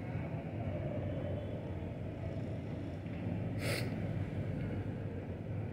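Steady low rumble of outdoor city ambience, with a short hiss a little past halfway through.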